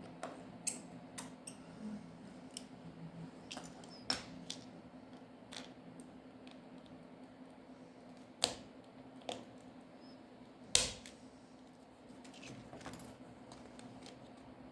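Scattered sharp clicks and taps of small tools and plastic phone parts being handled during reassembly of a smartphone, the loudest two about 8.5 and 11 seconds in, over a faint steady hum.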